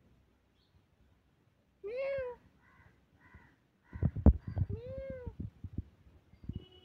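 A domestic tabby cat meows twice, about two seconds in and again near five seconds. Each meow is a single drawn-out call that rises and then falls in pitch. Between the meows come a few short harsh calls, and from about four seconds on there is a run of dull knocks, the loudest a sharp knock.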